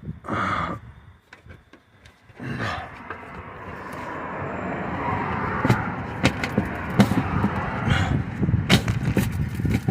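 Knocks, clunks and scraping as a plastic evap charcoal canister is worked loose and pulled out from under a Chevy truck. A steady rushing noise builds from about two and a half seconds in beneath the knocks.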